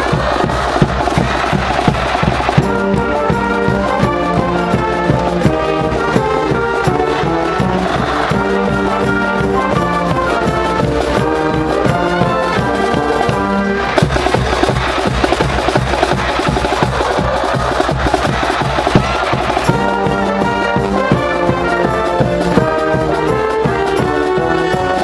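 Stand cheering brass band of trumpets and trombones playing a repeating fight-song melody over a steady drum beat, the phrase breaking off and restarting about halfway through.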